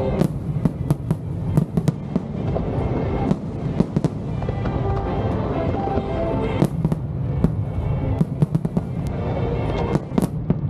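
Aerial fireworks going off in a rapid, irregular string of sharp bangs and crackles, some in quick clusters, over music.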